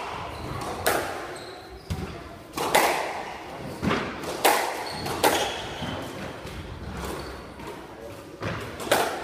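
Squash rally: the rubber ball is struck by rackets and cracks off the court walls, a sharp echoing hit roughly every second, with a longer gap after about five seconds in. Between the hits come a few short high squeaks of shoes on the wooden court floor.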